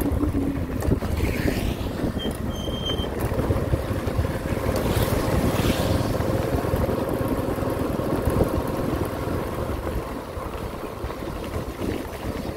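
Wind buffeting the microphone over a motorbike's engine running steadily as it rides along a rough dirt road, with a brief high beep about two seconds in.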